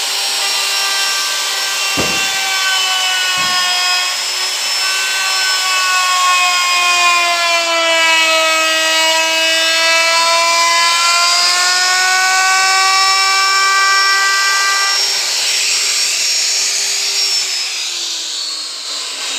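Handheld electric router running at high speed as it cuts the board: a strong whine that sags in pitch as the bit bites deeper and climbs back as the load eases. There are two sharp knocks about two and three and a half seconds in, and near the end the whine fades and drops in pitch.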